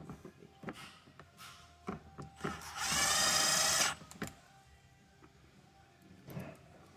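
Cordless drill driving a grille screw through a 5mm Allen bit, running in one burst of about a second and a half, starting about two and a half seconds in. Small clicks and handling knocks come before and after it.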